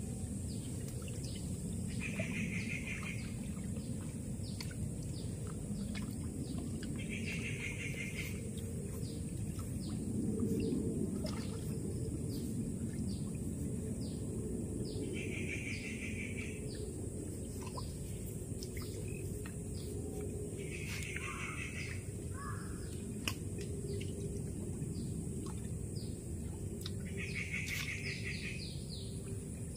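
Birds calling: one call of about a second repeats every five or six seconds, with many short chirps scattered between, over a steady low background noise.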